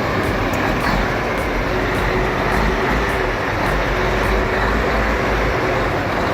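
Heavy diesel truck engine running steadily, with a deep, even rumble.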